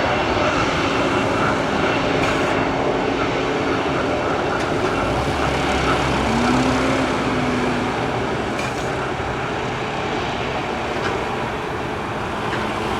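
Jet engine noise from an Airbus A321neo with Pratt & Whitney PW1100G geared turbofans, a steady roar that slowly fades as the aircraft moves away.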